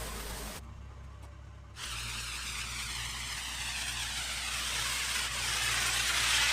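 Pressure washer running, its high-pressure water spray hissing steadily over a low machine hum. The spray drops out for about a second near the start, then comes back and grows slightly louder toward the end.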